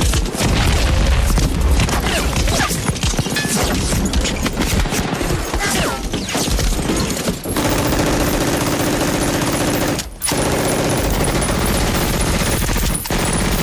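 Dense battle gunfire: volleys of rifle shots and rapid machine-gun fire with bullet impacts, in a war film's sound mix. The din drops out briefly about ten seconds in.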